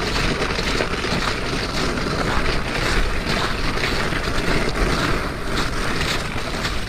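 Steady wind noise buffeting the microphone: an even, rumbling rush with no distinct events.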